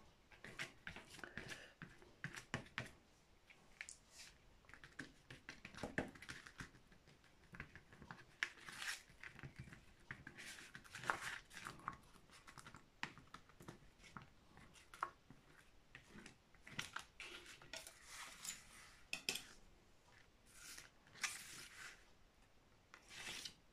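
Paint being applied to a canvas: faint, irregular scratchy strokes and light taps.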